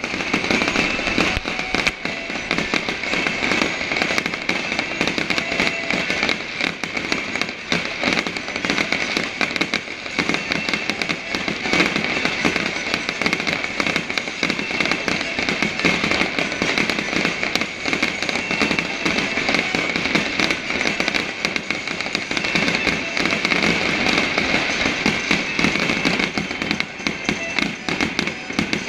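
Fireworks display with shells bursting and crackling in a dense, unbroken stream of bangs.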